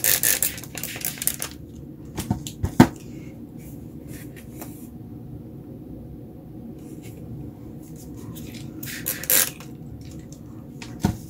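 Plastic scraper dragged over wet acrylic paint on paper in several short scraping strokes near the start, then a few sharp clicks and taps as tools are handled, the loudest about three seconds in, and another brief scrape near the end.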